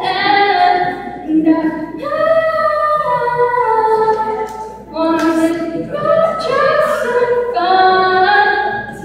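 A young girl singing a pop ballad solo, holding long sustained notes that slide from pitch to pitch, with short breaks between phrases.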